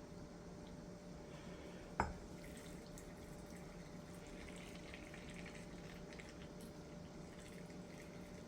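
Quiet kitchen with a steady low hum and faint water sounds from the canning pot. A single sharp clink about two seconds in.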